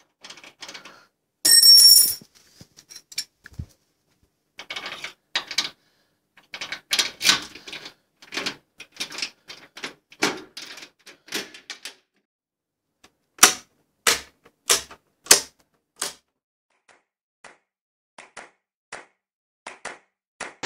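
A string of sharp mechanical clicks and clacks in uneven runs with short pauses, thinning out to scattered single clicks in the second half. About one and a half seconds in there is one louder, ringing clash.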